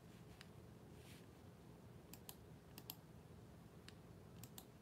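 Faint, scattered keystrokes on a computer keyboard, a few clicks at a time, mostly in pairs.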